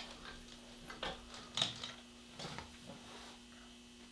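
A few light knocks and clicks, about three in the first few seconds, over a faint steady hum.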